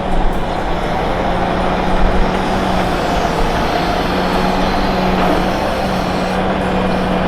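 Sawmill cutting line running steadily: motors and saw machinery making a loud, continuous noise over a constant low hum.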